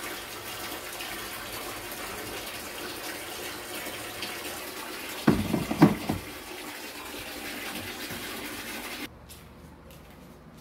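Hot water pouring from an electric kettle into a mug with a steady rush, then the kettle set back down on its base with a short clatter of knocks about five seconds in. The steady noise cuts off abruptly near the end.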